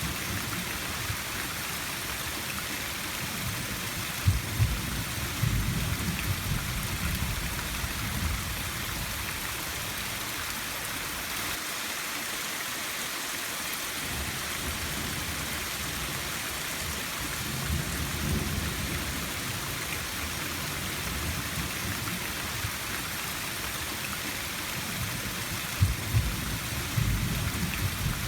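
Steady rain falling with an even hiss, with low rolls of thunder swelling about four seconds in, again midway, and near the end.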